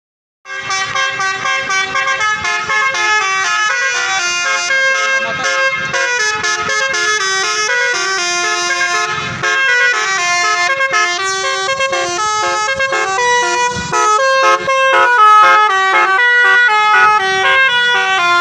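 Tour bus's basuri (telolet) multi-tone horn playing a melody, loud, the notes changing in quick steps one after another.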